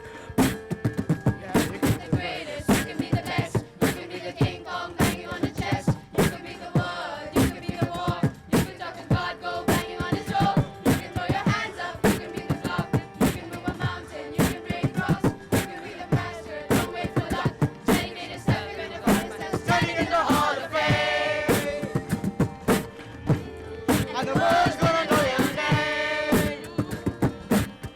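Music with a fast, steady drum beat; a singing voice comes in briefly twice in the second half.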